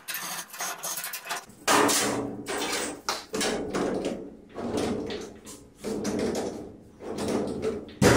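Chain hoist being worked by hand, its chain rattling through the hoist in repeated pulls about once a second.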